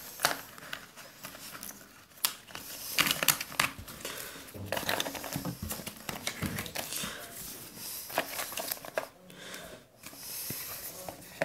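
Crinkling and rustling of a smartphone box's packaging being handled, with repeated sharp clicks and taps as the cardboard tray, paper insert and wrapped cable pieces are moved.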